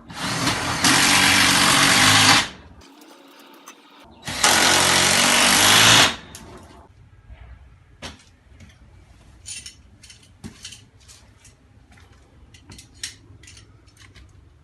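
Power drill running in two bursts of about two seconds each, driving or backing out fasteners on a garage door, followed by a run of light clicks and taps of hardware being handled.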